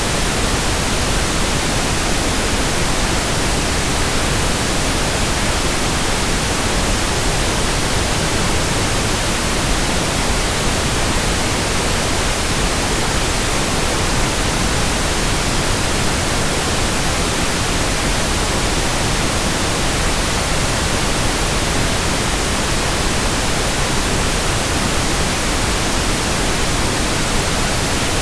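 Steady synthetic pink noise: an even, unchanging hiss with no other sounds.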